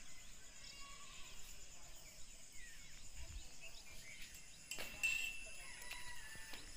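Faint outdoor ambience of birds chirping here and there over a steady, high insect drone, with a couple of clicks about five seconds in.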